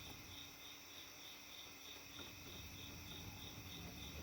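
Faint crickets chirping in a steady pulsing rhythm, about three chirps a second, with a faint click about two seconds in.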